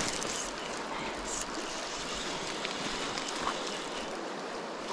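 Stream water flowing, a steady rush, with a few faint ticks.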